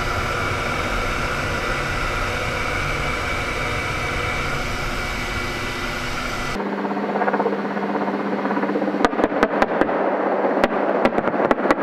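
Ka-52 Alligator attack helicopter noise heard inside the cockpit: a steady, dense din of turboshaft engines and coaxial rotors. About 6.5 s in, the sound switches abruptly to a thinner helicopter drone with a steady low tone. From about 9 s, a rapid, irregular run of sharp shots follows, from live firing during the exercise.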